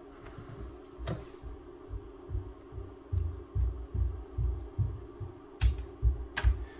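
Small DC gear motor of a Meade LX200 Classic RA drive running with a steady low hum, while test-probe clips are handled on its encoder board: irregular soft bumps and three sharp clicks, one about a second in and two near the end.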